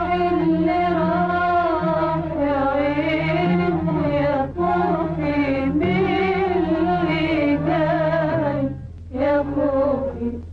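A woman singing an Arabic song in long, wavering, ornamented held notes over instrumental accompaniment, with a short breath-like break near the end.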